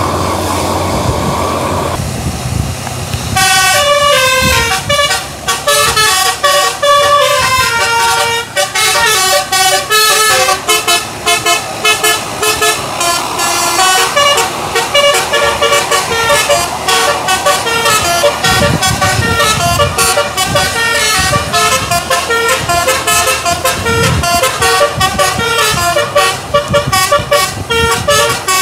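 A bus's musical telolet air horn of the basuri kind plays a quick tune of stepped notes, starting about three seconds in and running on. It follows a few seconds of steady engine rumble.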